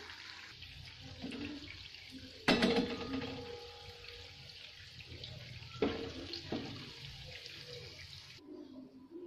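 Steady sizzling hiss of carrot malpuas deep-frying in oil. A steel spoon clinks sharply against a steel pan about two and a half seconds in, with a brief metallic ring, and knocks twice more, more lightly, around six seconds. The hiss cuts off abruptly near the end.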